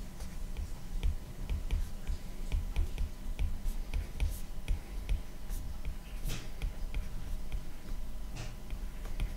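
Stylus tip tapping and stroking on a tablet's glass screen during handwriting: a quick run of light clicks, about three a second, with a few sharper scratchy strokes and soft low thumps.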